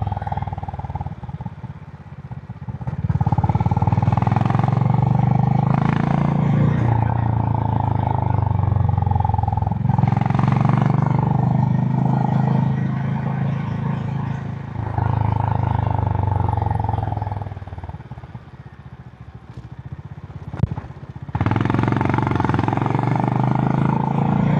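Honda CB350 H'ness's single-cylinder engine through its stock exhaust, heard from the riding motorcycle: it runs steadily under throttle, falls away twice as the throttle closes, soon after the start and about three-quarters through, then picks up again.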